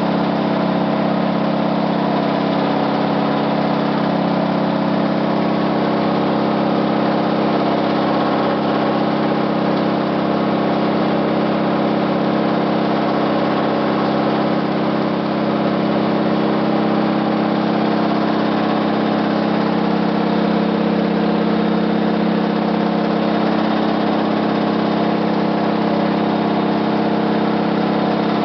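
Hotpoint WT761 washing machine running with a loud, steady mechanical drone, from a drum with worn bearings that were later replaced along with the seal and spider.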